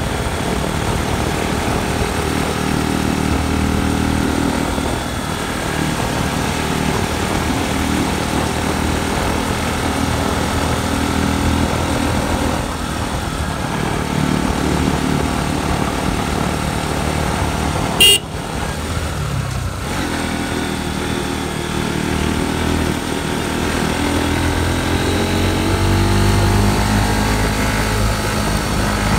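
Motorcycle engine running under way, its pitch rising and falling with the throttle and its low rumble growing stronger near the end. About eighteen seconds in there is one short, sharp, loud burst.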